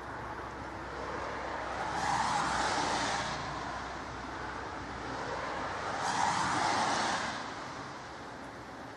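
Two vehicles pass one after the other on a wet road, each a hiss of tyres that swells and fades over about a second and a half, over a steady hiss of falling wet snow.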